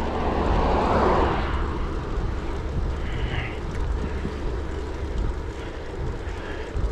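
Wind buffeting the microphone of a moving bicycle, a steady low rumble with a louder rushing swell about a second in.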